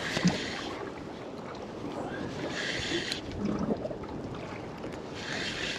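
Water slapping against the hull of a small drifting boat, with wind on the microphone, in three short surges of hiss.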